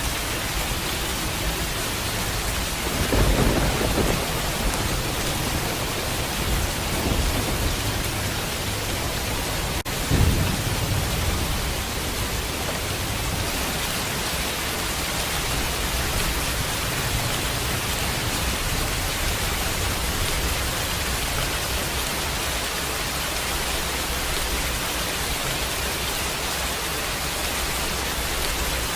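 Steady rain hiss in a thunderstorm, with low thunder rumbles about three seconds in and again about ten seconds in.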